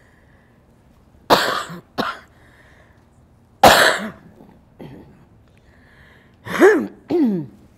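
An elderly woman coughing and clearing her throat in about five sharp bursts, the last two close together with a falling voiced tone, as she struggles with emotion while crying.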